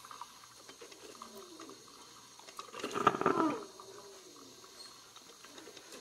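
Water running faintly, as into a filling washtub, with one short wavering whine about three seconds in.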